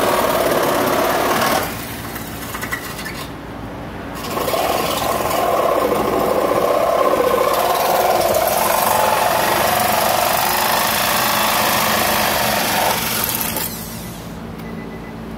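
Reciprocating saw cutting through the rusted sheet-metal floor pan of a car: a short run, a pause of about two seconds, then a long run of about nine seconds that stops near the end.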